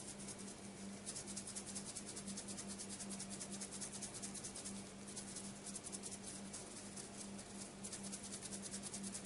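Philips AQUA CLEAN water filter cartridge being shaken by hand, opening up, its loose filter granules rattling faintly in a fast, even rhythm. The shaking loosens and mixes the absorbent inside before the cartridge is soaked and activated.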